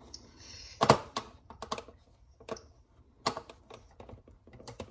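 Scattered small plastic clicks and taps from a screwdriver and handled parts while the circuit board's screws are removed from a Big Mouth Billy Bass singing fish. Two louder clicks come about a second in and a little past three seconds.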